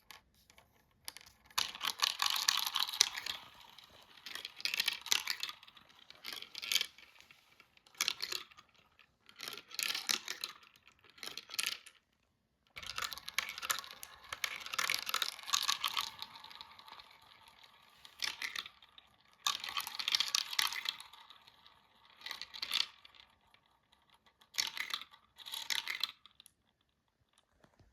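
Small marbles rolling and clattering down a marble run track: bursts of rapid clicking lasting a second or two, coming again and again with short pauses between.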